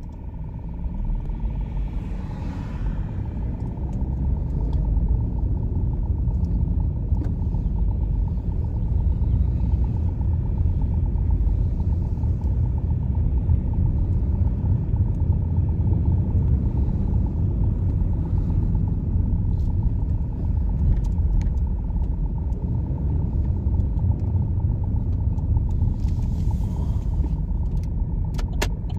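Car driving slowly on town streets, heard from inside the cabin: a steady low rumble of engine and tyres that grows louder over the first few seconds, with a faint steady high hum underneath and a few light clicks near the end.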